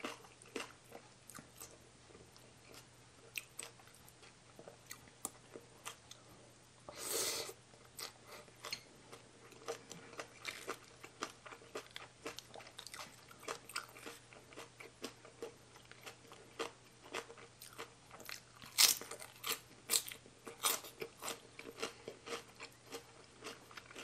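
Close-miked eating: wet chewing and crisp crunching of spicy salad and raw cabbage in irregular bites, with one longer noisy burst about seven seconds in and the loudest crunches near the end.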